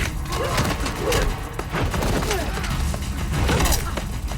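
Repeated gunfire and sharp hits from a close-quarters fight, with short grunts or shouts among them.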